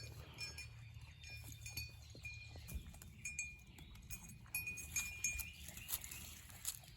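Two goats grazing, with faint clicking and crunching as they pull at and chew flowers, over a steady low rumble. Short high peeps come and go throughout.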